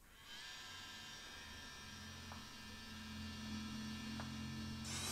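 EMAX 2204 brushless miniquad motor, no propeller fitted, spun up from the Cleanflight motor test. It gives a steady high whine over a low hum that starts just after the beginning, then steps up in pitch and loudness near the end. The motor is being checked for bell imbalance and judged pretty good.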